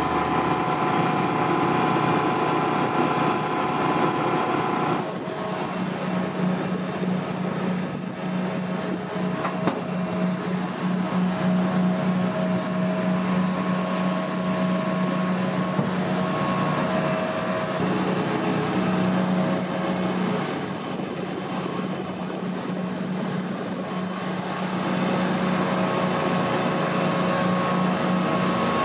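Steady machinery drone on an aircraft flight line: a strong low hum with fainter, steady higher whines. It shifts in tone about five seconds in and dips slightly for a few seconds past the middle.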